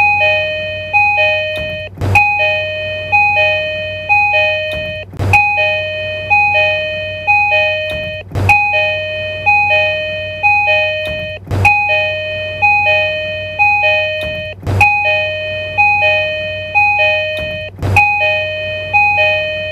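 Tokyu Railway train door chime (the chime of the 2020, 6020 and 3020 series) sounding a two-note high-low chime three times over, repeating about every three seconds. A sharp click starts each repeat.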